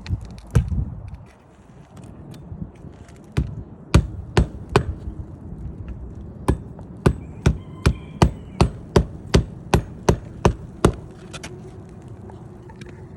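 Hammer blows on roofing: a few scattered strikes, then a steady run of about a dozen blows, two or three a second, that stops about two seconds before the end.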